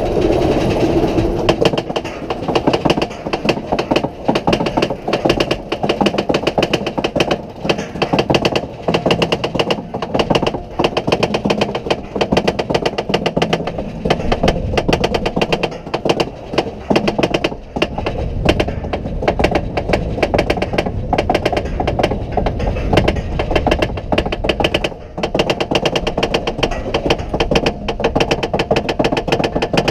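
Mine train roller coaster car clattering up its lift hill, with a fast, steady run of mechanical clicks and rattles from the lift and track.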